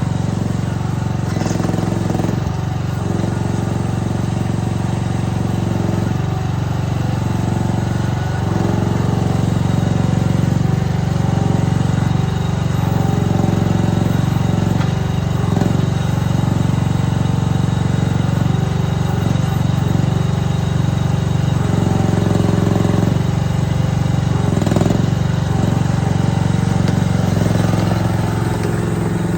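Mini excavator's engine running steadily, its tone shifting every second or two as the machine is worked.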